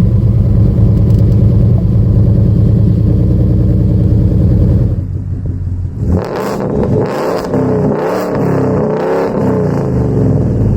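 Ford F-150's 5.0 V8 engine running steadily for about five seconds, then revved up and down several times.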